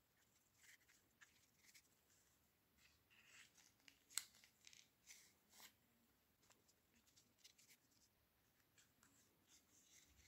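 Faint rustling and light clicking of yarn being handled and wound around a card loom with metal hair pins, with one sharper click about four seconds in.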